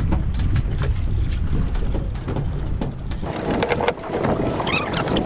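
A sportfishing boat under way: low engine rumble with wind buffeting the microphone. About three seconds in, the low rumble drops back and a brighter hiss of wind and water comes up.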